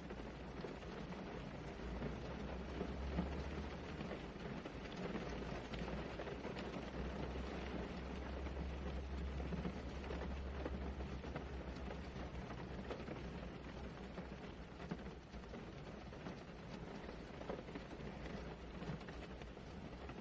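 Steady rain falling, a continuous even hiss, with a deep low rumble swelling twice, once about two seconds in and again around eight seconds in.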